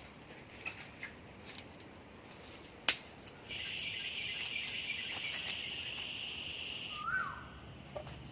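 An insect trills steadily in a high, even buzz for about three and a half seconds, then stops abruptly. It starts just after a single sharp click, and a short rising-and-falling chirp follows near the end.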